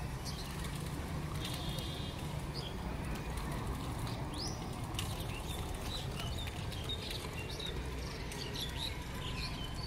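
Small birds chirping repeatedly over a steady low mechanical hum.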